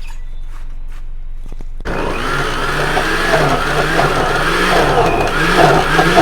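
Electric kitchen blender switched on about two seconds in. Its motor then runs loudly with a wavering pitch as it chops a thick mix of green seasoning herbs and onion.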